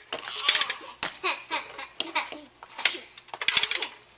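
Toy guns clicking and rattling in quick bursts, mixed with children's laughing and voiced shooting noises with falling pitch.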